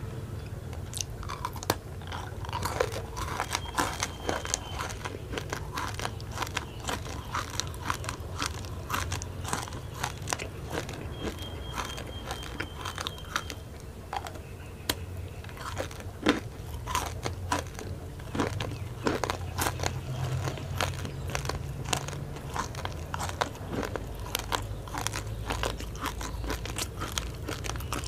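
Close-miked crunchy biting and chewing of a candy stick coated in rainbow sprinkles, with many sharp irregular crackles throughout.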